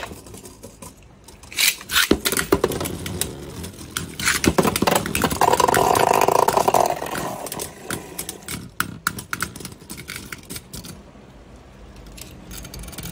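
Several Beyblade Burst spinning tops spinning in a plastic stadium, knocking and clacking against each other and the stadium walls in many sharp clicks. The clatter thins out and gets quieter over the last few seconds as the tops slow down and stop.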